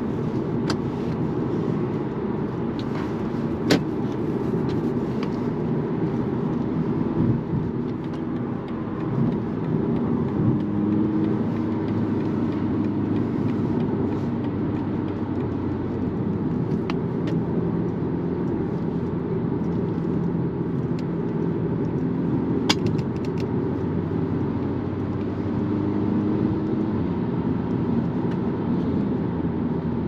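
Steady road and wind noise inside the cabin of a BMW 220d xDrive Gran Coupe cruising at Autobahn speed, with the low hum of its two-litre four-cylinder diesel underneath. A few short sharp clicks stand out, one about four seconds in and another past the middle.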